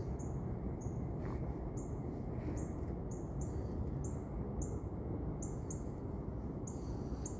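A small bird chirping again and again, short high chirps about one or two a second, over a steady low rumble of outdoor background noise.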